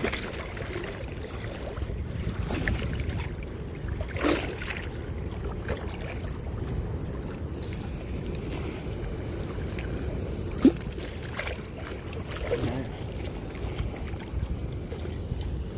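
Steady low rumble of rushing spillway water, with a few short knocks and one sharp click about ten seconds in.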